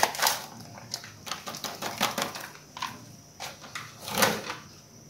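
Foil-lined packet crinkling as white powder is shaken out of it into a ceramic bowl, with scattered small clicks and rustles. A louder rustle comes about four seconds in.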